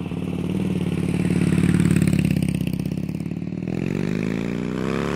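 2004 Harley-Davidson Softail Springer's Twin Cam 88 V-twin running through Samson staggered downturn exhaust pipes, a steady loping idle. Near the end it revs up, rising in pitch.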